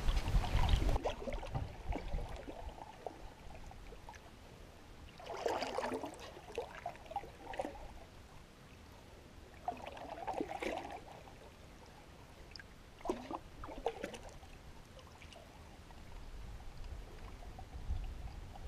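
Canoe paddle strokes in calm creek water: three separate splashing, gurgling strokes about four seconds apart, with water trickling off the blade.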